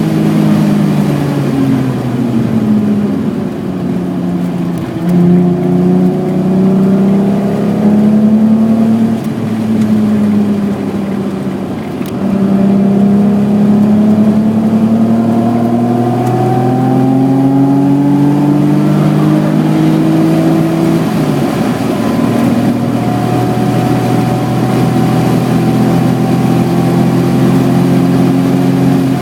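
A BMW E28's 3.6-litre engine heard from on board under hard driving, its note climbing through the revs and falling back several times as the car accelerates and lifts. It makes a long pull in the middle, drops suddenly, then holds a steady, slowly rising note.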